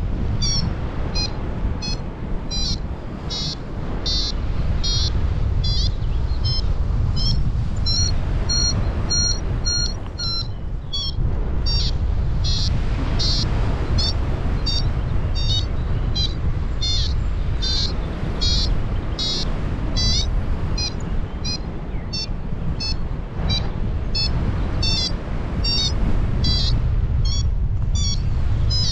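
Paragliding variometer beeping in short, high, rising chirps, roughly two a second with a brief gap around the middle, over a steady rush of wind on the microphone. The repeating chirps are the vario's climb tone, the sign that the glider is rising in lift.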